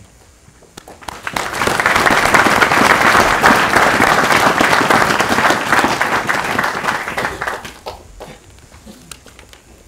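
Audience applauding: the clapping swells about a second in, holds steady for several seconds, then dies away near the end.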